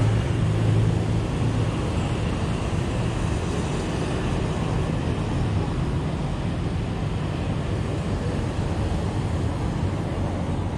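Steady rushing noise of riding a mountain bike: wind on the GoPro's microphone together with the tyres rolling on asphalt.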